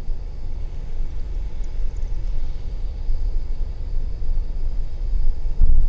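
Wind buffeting the microphone while riding an e-bike: a loud, uneven low rumble, with a heavier gust near the end.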